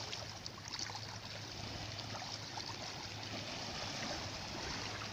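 Small waves washing through shallow sea water at a pebble beach: a steady rush of water with a few faint splashes.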